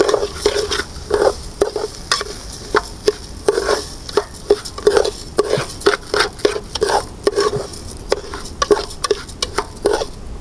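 Rice sizzling as it is sautéed in oil in a pot before water goes in. Stirring makes a utensil scrape and knock against the pot in quick, irregular strokes, several a second, over a steady sizzle.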